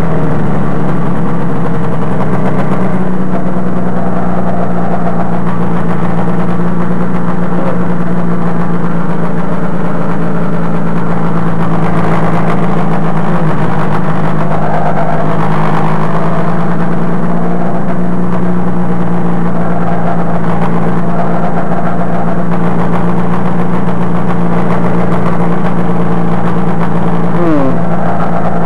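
Rotax 503 two-cylinder two-stroke engine of a Sabre ultralight trike running loud and close behind the pilot, rising slightly in pitch at the start and then holding a steady pitch as the trike rolls along the runway.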